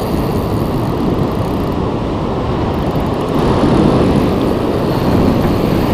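Steady, loud rushing rumble of wind and breaking surf on an open beach, swelling slightly about three and a half seconds in.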